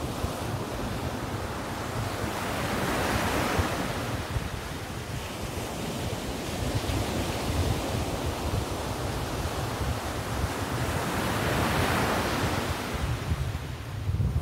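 Ocean surf breaking and washing up a sandy beach, swelling twice as waves come in, with wind rumbling on the microphone.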